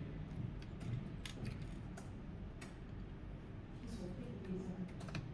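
Irregular light clicks and taps, a few to the second, over a low room murmur, with faint voices about four seconds in.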